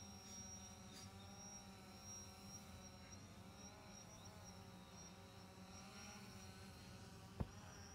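Faint, steady motor hum with several pitched tones that dip briefly in pitch midway, with a single sharp thud near the end.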